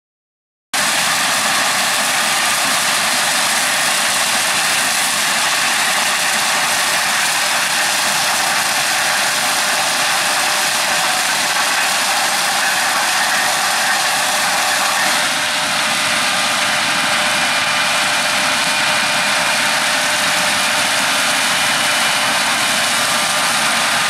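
Claas Lexion 8700 combine harvester at work cutting standing grain maize: a steady, loud blend of engine and threshing machinery with faint steady whining tones, starting abruptly about a second in.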